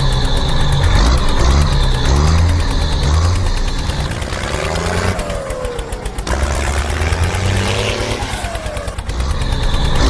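Tractor engine sound running with uneven, pulsing surges, dipping briefly midway, with two short falling whines.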